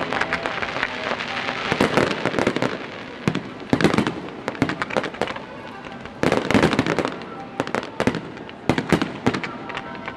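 Fireworks display: rapid volleys of cracking bangs and crackle, coming in dense clusters about two, four, six to seven and eight to nine seconds in.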